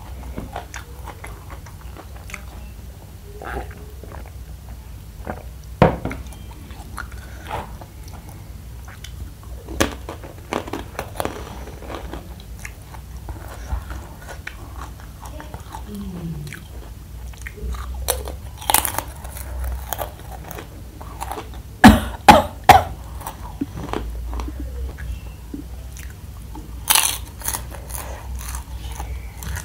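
Close-mouthed chewing and crunching of crispy, chilli-coated fried macaroni snacks. Sharp crunches are scattered throughout, the loudest in a cluster about three quarters of the way through, over a low steady hum.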